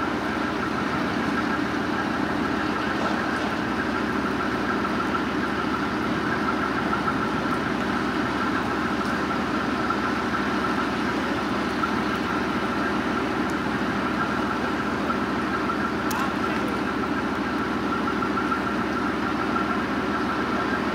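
Leopard 1 armoured recovery vehicle's V10 diesel engine running steadily at idle while its hydraulic crane holds and lifts a load, with a steady high whine over the engine note.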